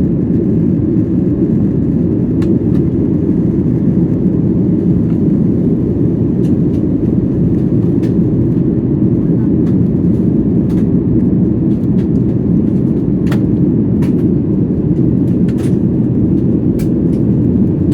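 Steady low cabin noise of a Boeing 737-800 in the climb after takeoff: the CFM56 turbofan engines and the rush of air over the fuselage, heard from inside the cabin. A few faint clicks sound over it.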